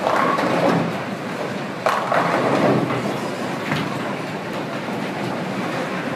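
Bowling alley noise: bowling balls rolling down the lanes with a steady rumble, and a sudden crash of pins about two seconds in.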